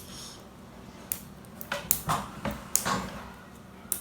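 Irregular plastic clicks and knocks, about eight in two seconds, from prying at the battery cover of a LAN cable tester, which is hard to get open.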